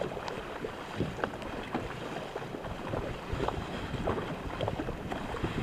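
Two paddlers in a K2 racing kayak driving their blades into the water stroke after stroke, with repeated splashes over a steady rush of water along the hull.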